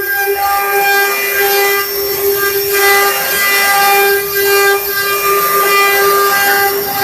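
CNC wood-carving router running: its spindle gives a steady high whine while the bit cuts into wood, with an uneven cutting noise that swells and fades over it.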